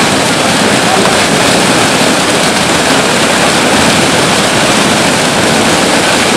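Many fish thrashing and jumping in the shallow water of a drawn seine net, making a dense, steady splashing.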